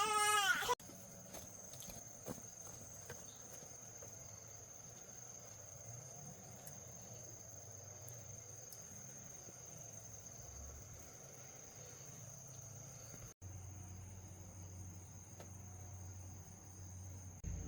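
A baby's cry that cuts off abruptly under a second in, then insects chirring steadily at one high pitch over faint background noise.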